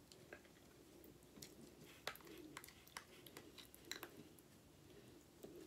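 Faint scraping and clicking of a small spoon working thick cheese sauce out of a plastic cup, a scatter of sharp ticks with the sharpest about two seconds in.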